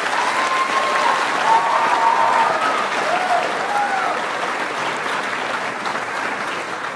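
Large audience applauding in a hall, with a few voices whooping over it in the first seconds; the clapping fades toward the end.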